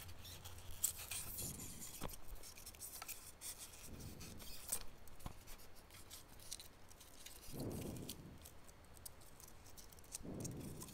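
A pen being forced through a hole in a styrofoam block, the foam giving faint, irregular scraping and creaking with scattered small clicks.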